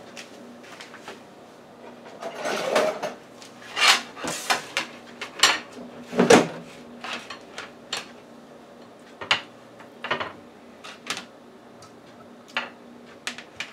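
Kitchen handling clatter: a metal wire mesh rack and a plate knocking on the countertop as salmon fillets are moved about, in a dozen or so separate clicks and knocks. The loudest knock, about six seconds in, comes as the air fryer oven's door is shut.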